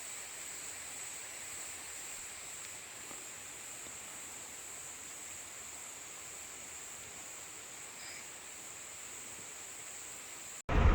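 Steady high-pitched chirring of an insect chorus in the open countryside. Just before the end it cuts off suddenly into loud, rumbling noise.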